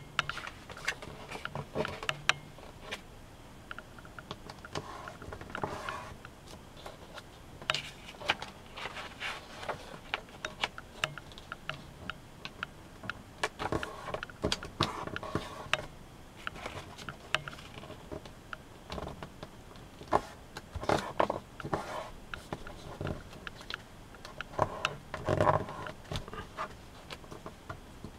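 A square sheet of origami paper being handled and folded by hand: irregular rustling and crackling of the paper, with sharp clicks and taps as creases are pressed down.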